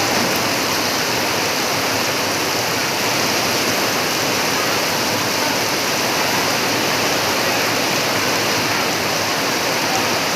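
Heavy rain falling, a steady, even hiss with no single drops standing out.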